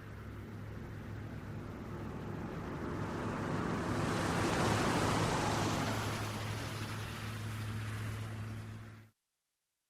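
Traffic on a wet city road: a vehicle's tyres hissing on wet asphalt, swelling to a peak about five seconds in and then fading, over a steady low hum. The sound cuts off abruptly about nine seconds in.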